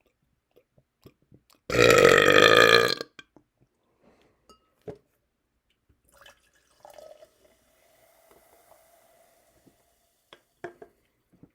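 A man's long, loud belch about two seconds in, lasting a little over a second, brought up by drinking carbonated seltzer water. Faint clicks and mouth noises follow.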